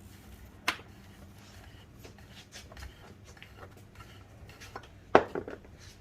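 Clicks and knocks of small parts and tools being handled while old tubing is worked off the metal nipples of a player-piano stack. There is a sharp click about a second in, and a louder clack near the end followed by a few lighter ticks.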